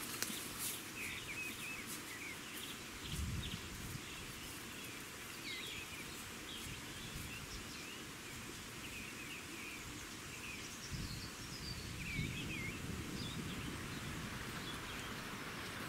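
Small birds chirping and calling on and off over a steady outdoor hiss, with a few brief low rumbles.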